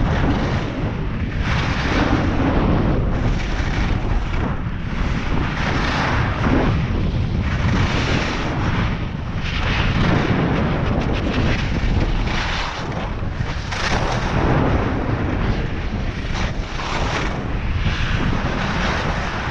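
Wind rushing over the camera microphone during a fast ski-slope descent, a steady low rumble, with the scraping hiss of edges carving turns on groomed snow swelling every second or two.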